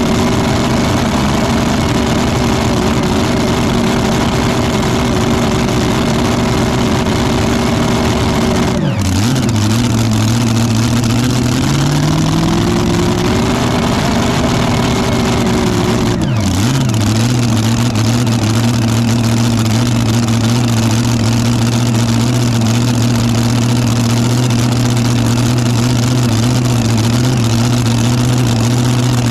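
Supercharged engine of a mini rod pulling tractor idling, its pitch dropping sharply about a third of the way in, climbing back, then dipping again and settling into a lower, steady idle.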